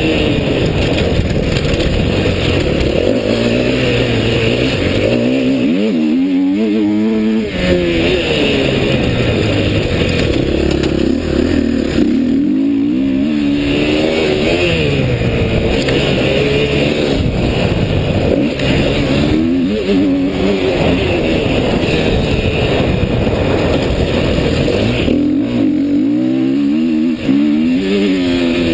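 Dirt bike engine running hard under the rider, its pitch climbing as the throttle is opened and dropping back with each shift or lift-off, over and over, with a steady rush of noise underneath.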